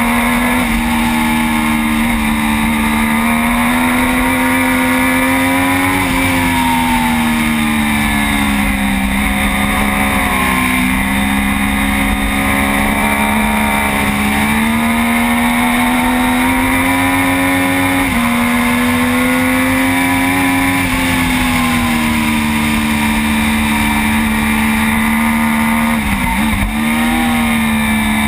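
Triumph Daytona 675 inline-three engine running hard at racing speed, heard from a bike-mounted camera with steady wind rush. The engine note climbs and falls several times as the rider shifts and brakes through the corners of the lap.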